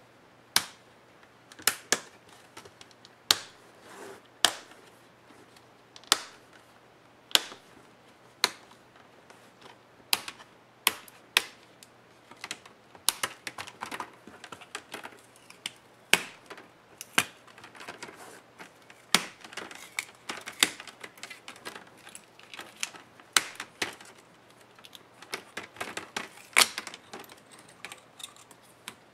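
Plastic snap-in clips of an ASUS TUF FX505D laptop's screen bezel popping loose as the bezel is pried off by hand: sharp clicks and snaps, about one a second at first, then coming faster and more irregularly from about ten seconds in.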